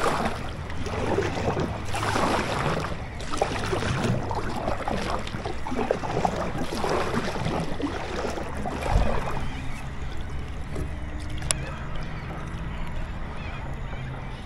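Water sloshing and splashing against a kayak's hull in uneven swells, with a sharp tick about eleven seconds in.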